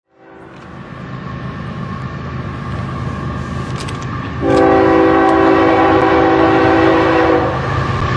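Diesel freight locomotive rumbling past, with its multi-chime air horn sounding one long, loud blast about four seconds in that lasts about three seconds.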